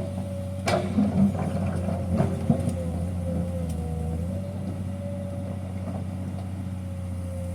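Heavy construction machine's engine running steadily, with a faintly wavering whine over the low hum. Sharp knocks come under a second in and again at about two seconds.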